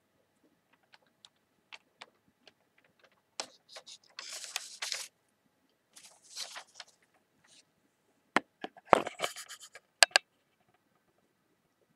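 Newspaper pages being turned and handled: light ticks and taps of paper, with crisp rustling about four seconds in and again around six seconds. Near the end comes a louder flurry of sharp clicks and rustling.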